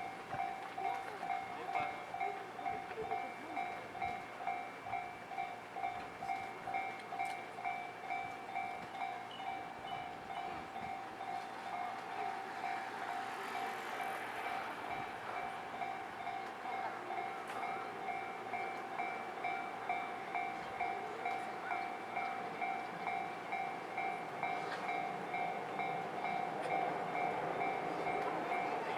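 Japanese railway level-crossing warning bell ringing steadily at about two strokes a second, signalling an approaching train. A train runs past through the middle.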